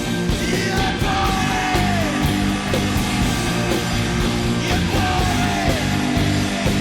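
Loud live rock music: a band playing with a voice singing over it. Two long held notes drop in pitch at their ends, the first about a second in, the second about five seconds in.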